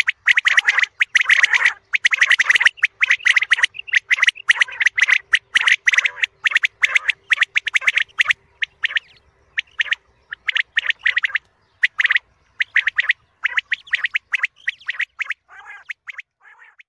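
Quail calling: rapid runs of short, sharp chirping notes, packed closely at first and growing sparser with longer pauses toward the end.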